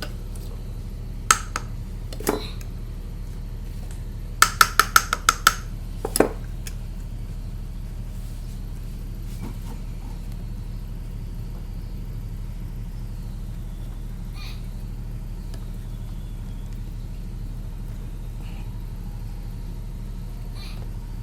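Metal alternator parts clinking and knocking together as they are handled and fitted, with a quick run of about seven ringing clinks around five seconds in. A steady low hum lies underneath throughout.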